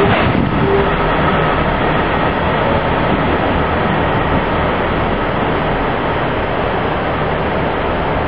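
Diesel multiple unit running away along the platform. Its engine and wheel noise is steady, with a few wheel clicks at the start, and fades slightly toward the end as it recedes.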